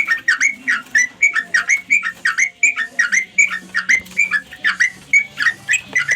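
Yellow-vented bulbul (trucukan) call: a rapid, unbroken series of short bubbling chirps, about four or five a second, the kind of calling used to attract other birds of its kind.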